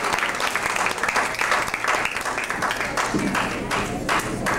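Audience applauding, which about three seconds in turns into rhythmic clapping at roughly three claps a second.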